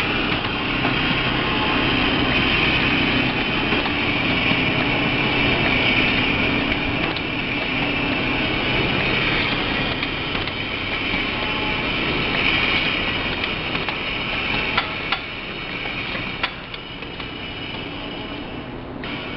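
Automatic lunch-box tray sealing machine running: a steady mechanical drone with a hissing band on top, broken by a few sharp clicks of its moving parts about three quarters of the way through, after which it runs a little quieter.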